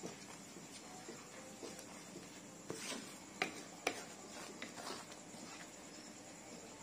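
Wooden spatula stirring thick chilli spice paste frying in a pan: scattered soft scrapes and taps against the pan over a faint steady hiss, with two sharper taps about halfway through.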